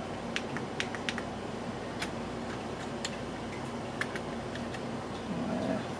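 Sharp plastic clicks and taps at irregular intervals from hands working a 3D-printed case and its reset push button, over a steady low electrical hum.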